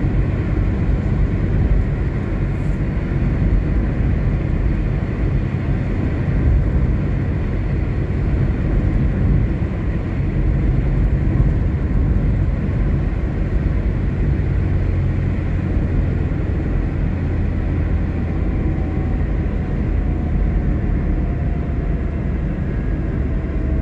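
Steady road noise heard from inside a moving car: a low, even rumble of tyres on asphalt and engine hum as the car drives along the highway.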